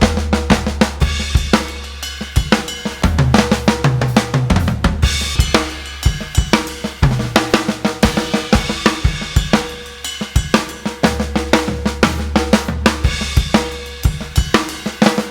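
Drum kit played hard and fast: rapid snare and bass drum strokes with cymbal and hi-hat crashes in triplet fills, over a steady low bass.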